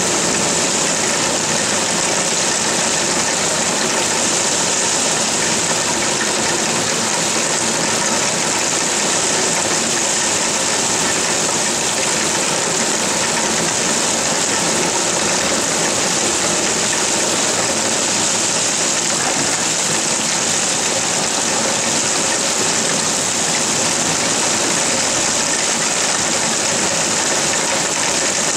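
Heavy rain pouring down steadily, an even hiss that neither builds nor lets up.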